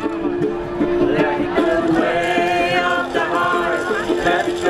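A group of people singing a song together, with a steady held note underneath.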